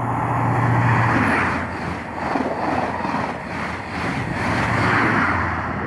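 A First Great Western InterCity 125 high-speed train passing at speed. The leading Class 43 power car's diesel engine drone fades about a second in and gives way to the rush of the coaches and the rhythmic clatter of their wheels, and a low engine drone comes back near the end.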